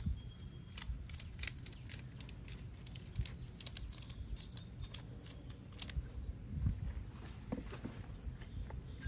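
A ratchet tie-down strap on a stacked beehive being worked loose: scattered sharp clicks of the ratchet and hook, in small clusters, over a low steady rumble.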